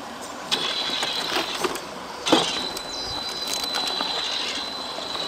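GMade Komodo electric RC crawler climbing rocks: its tires scrabble and knock against the stones in several sharp clicks, the loudest about two seconds in. From then on its motor and drivetrain give a steady high whine under load.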